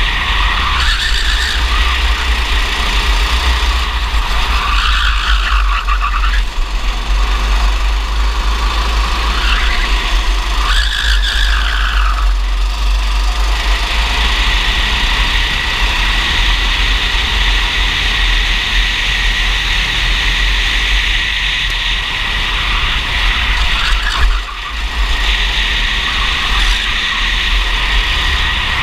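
Racing kart engine running hard, heard from a camera mounted on the kart, with heavy wind rumble on the microphone. The engine note rises and falls several times as the kart brakes and accelerates through corners, and dips briefly near the end.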